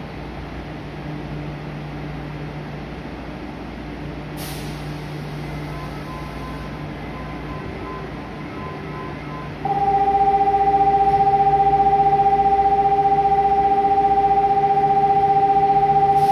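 A Nagoya Municipal Subway 2000 series train stands at an underground platform, its equipment giving a low steady hum, with a short hiss about four seconds in. Past the middle, a loud steady electronic tone starts suddenly and holds for about six seconds.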